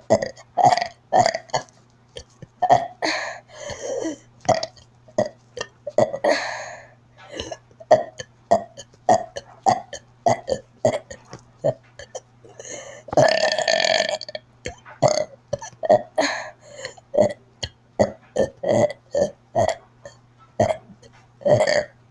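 A child burping over and over in a rapid string of short burps, about two a second, with one longer burp a little past halfway.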